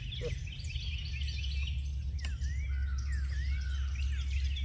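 Many songbirds chirping and singing at once, a dense chorus of quick, gliding chirps, over a steady low rumble. There is a single faint click about two and a half seconds in.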